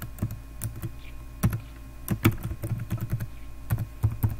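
Typing on a computer keyboard: a run of irregular keystrokes as a user name and password are entered.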